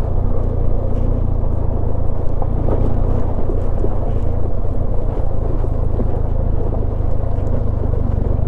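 Benelli TRK 502's parallel-twin engine running steadily under way on a rough gravel track, heard from the rider's seat.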